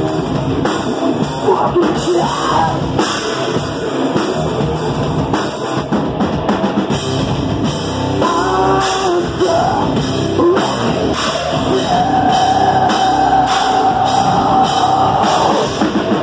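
Hard rock band playing live and loud: drum kit and electric guitars, with a long held note in the last few seconds.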